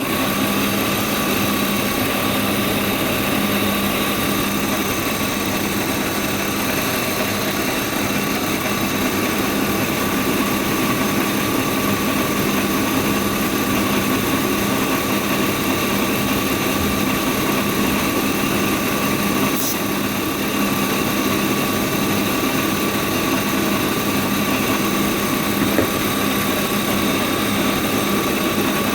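BMW E36 328i's 2.8-litre straight-six engine idling steadily while it is checked for vacuum leaks. A single brief click is heard about two-thirds of the way through.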